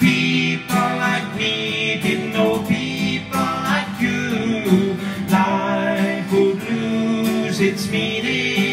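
Acoustic guitar strummed steadily, with a man singing a slow country-style song over it.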